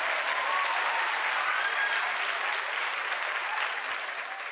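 Theatre audience applauding at the end of a stand-up set, the clapping starting to die down near the end.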